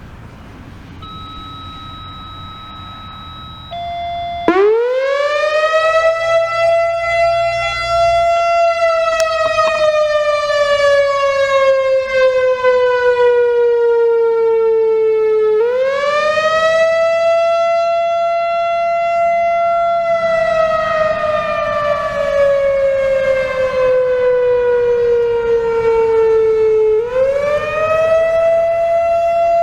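Late-1980s Whelen WPS-4000-4 electronic outdoor warning siren starting its analog wail about four seconds in, after a short steady tone. The wail rises quickly, holds, then slides slowly down before rising again, twice over. The siren is weaker than it should be, which the owner puts down to its age, with a couple of its speaker drivers likely blown.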